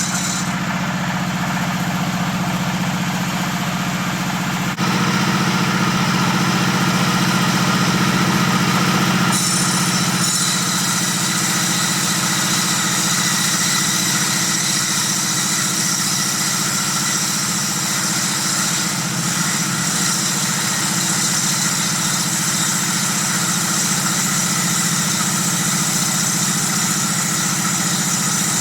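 Table saw running with a steady hum and a hiss above it. The sound shifts abruptly about five seconds in and again about nine seconds in.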